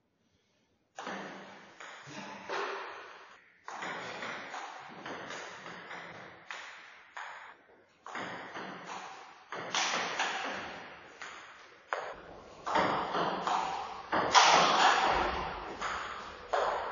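Table tennis rally: a celluloid ball knocked back and forth with rubber paddles and bouncing on the table, a long run of sharp clicks that ring in the hall. The hits come quicker and louder near the end, with a few low thumps.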